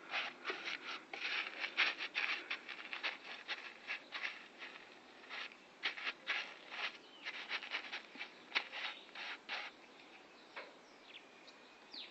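Rapid, irregular scraping strokes, about three or four a second, in runs with short pauses around five and ten seconds in, typical of hand abrading work on a rusty car body panel.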